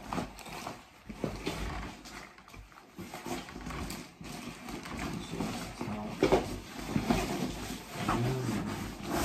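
Rustling and crinkling of plastic wrapping and stiff fabric as a large canvas carry bag is unwrapped and handled, with irregular knocks and bumps. A brief low pitched sound comes near the end.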